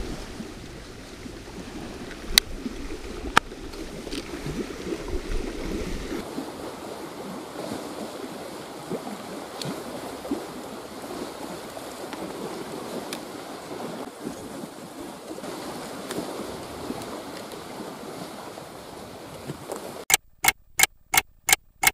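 Lake waves washing against a rocky shore with wind. There are two sharp knocks a few seconds in, and a quick run of about five sharp clicks near the end.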